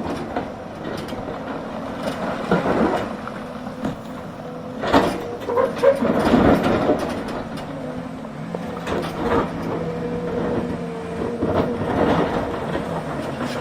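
Hidromek excavator at work: its diesel engine running steadily under load, with irregular knocks and clanks from the working machine, the loudest about five to seven seconds in.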